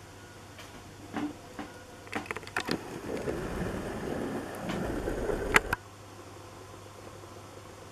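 Handling noise: a few scattered clicks, then a rustling rumble with knocks that ends in a sharp click and cuts off abruptly, over a low steady hum.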